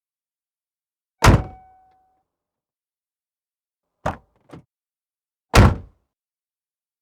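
Car door slammed shut with a loud thunk and a brief metallic ring, then two light latch clicks as it is opened again, then slammed shut a second time with another heavy thunk.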